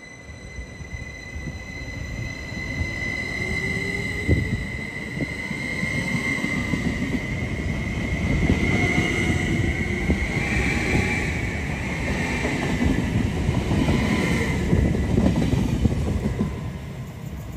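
Caltrain Stadler KISS electric multiple unit accelerating hard away from a station platform. A steady high whine runs with a fainter whine that rises in pitch, over wheel-and-rail rumble that grows louder as the train picks up speed and the cars pass.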